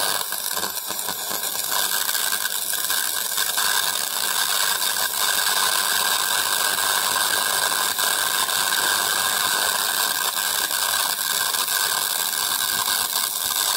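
Argon plasma discharge in a homemade magnet-ring ion drive, fed about 4400 volts from two microwave oven transformers through a 10 kV rectifier and a 50 microfarad capacitor. It gives a steady, rapid crackling hiss: the pulsed 'ratchet' discharge of the ionized gas.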